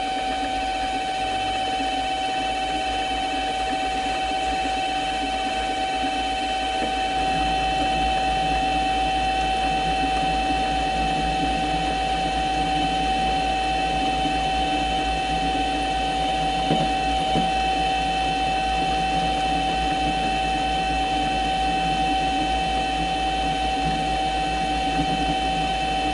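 Mini lathe running steadily with a constant motor and gear whine while a spring parting tool is fed into the turning workpiece, growing a little louder from about seven seconds in. The parting blade is set below centre height, which the operator takes for too low to cut through.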